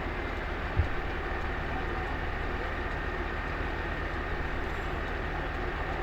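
A boat's engine running steadily, a constant low drone, with a short low bump just under a second in.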